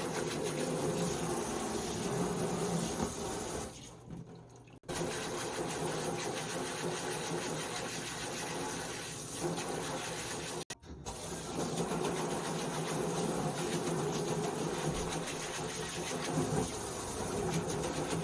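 Water running steadily, a continuous rushing with a low hum under it, cutting out briefly twice.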